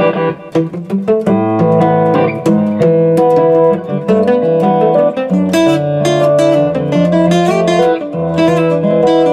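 Steel-string koa dreadnought acoustic guitar played with a flat pick: picked melody notes and chords ringing over held bass notes.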